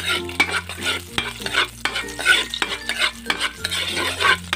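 Chopped garlic sizzling in hot oil in a large metal wok, stirred with a metal spatula: rapid, repeated scrapes of the spatula on the pan over a steady frying sizzle.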